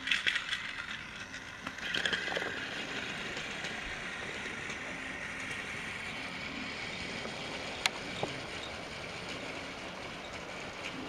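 Battery-powered TrackMaster Thomas toy engine running along plastic track, a steady whir from its motor and wheels. A sharp click sounds about eight seconds in.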